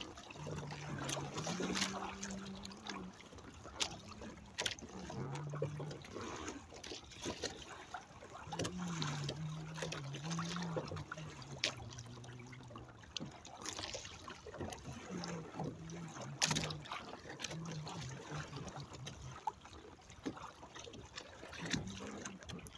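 Water splashing and slapping against the hulls of a Hobie sailing kayak with outrigger hulls as it moves through choppy water, with frequent sharp slaps. A low wavering hum comes and goes under it.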